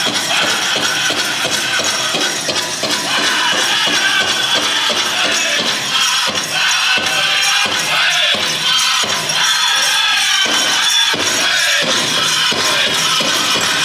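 Powwow music: a steady drumbeat under a dense metallic jingling.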